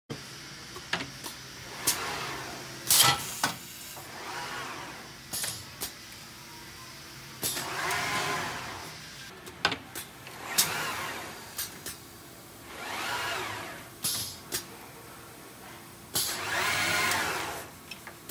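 Model SST screen printer's servo-driven sliding table travelling back and forth. About five times its motor whines up and back down in pitch over about a second, and sharp clicks and knocks from the machine's actuators fall in between.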